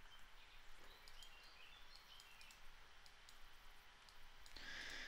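Near silence, with a few faint clicks of a computer mouse and a soft hiss near the end.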